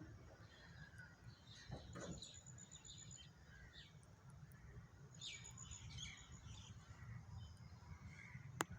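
Faint birds chirping and calling in short scattered phrases, some with thin high trills, over a low steady rumble. A single sharp click comes near the end.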